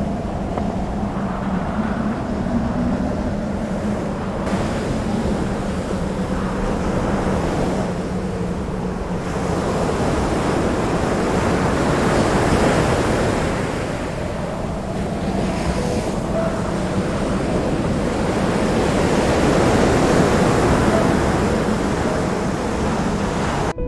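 Sea surf washing in over rocks, swelling and easing in slow surges, with some wind on the microphone; it cuts off abruptly at the end.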